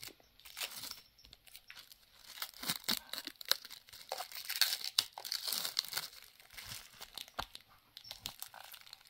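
Clear plastic shrink wrap being peeled and torn off a small box, crinkling and crackling in irregular bursts.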